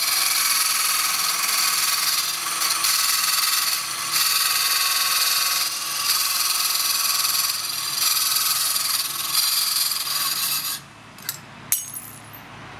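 Makita CC301D 12-volt cordless glass and tile cutter with its water-fed blade grinding through a thin glass bottle: a high, hissing grind that dips and swells as the cut goes, stopping suddenly about eleven seconds in. A couple of sharp clicks follow.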